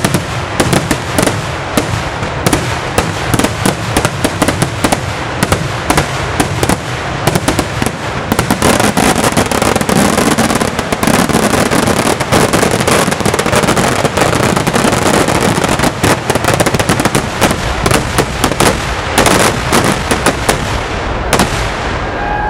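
Kerala temple-festival fireworks (vedikkettu): a rapid, dense barrage of firecracker bangs that merges into an almost unbroken crackle for several seconds in the middle, with a few last separate loud bangs near the end.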